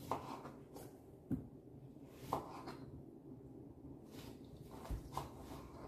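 Faint, scattered soft squishes and light knocks of a lemon half being squeezed by hand against a metal strainer, a few brief sounds about a second apart.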